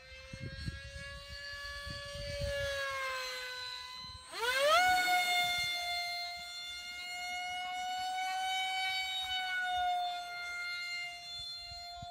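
Electric ducted-fan (impeller) motor of a Robbe Arcus V-tail 1400 hotliner model glider whining in flight: a high tone with several overtones. About four seconds in the pitch dips briefly, then climbs sharply and gets louder, and holds steady after that. Wind rumbles on the microphone in the first few seconds.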